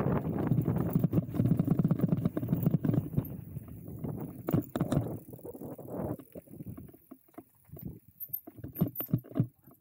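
E-mountain bike rattling and clattering, its tyres rumbling over rough trail ground. It is a dense run of knocks for about the first six seconds, then it thins to scattered knocks.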